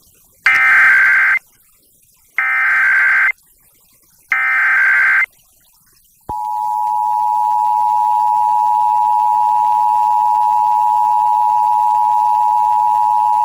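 Emergency Alert System monthly test tones. Three one-second bursts of SAME digital header data come with about a second of silence between each. About six seconds in, the steady two-tone EAS attention signal starts and holds.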